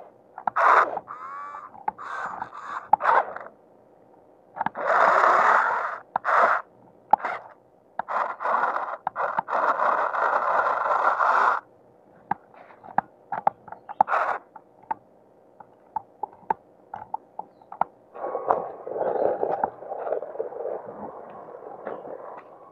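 Battery-powered RC off-road truck driven in stop-start bursts: the electric motor and gears whir under throttle while the knobby tyres churn through mud, water and gravel, with clicks and knocks from the chassis and wheels between bursts.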